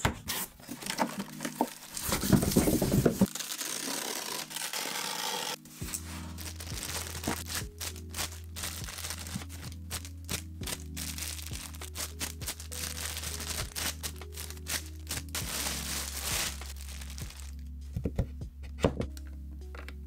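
Unpacking noises: a styrofoam packing box and plastic-wrapped statue pieces being handled, with a loud burst of noise about two seconds in and many small clicks and knocks. Background music with a steady bass line comes in about six seconds in.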